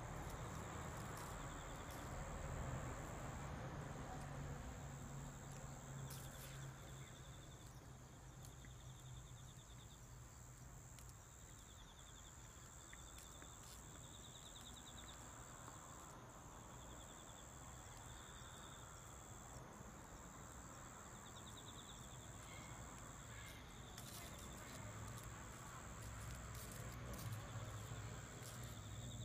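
Faint insect chirping: short, rapidly pulsed trills repeating every second or two over a low outdoor rumble.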